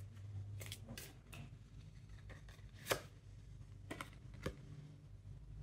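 A deck of oracle cards shuffled by hand: soft, irregular clicks and slides of card on card, the sharpest snap about three seconds in, then a card drawn from the deck.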